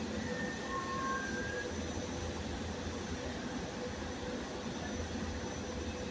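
GE Silverliner IV electric commuter train slowing to a stop at a platform, giving a steady hum and rush with a low drone. A few faint short tones sound in the first second or two.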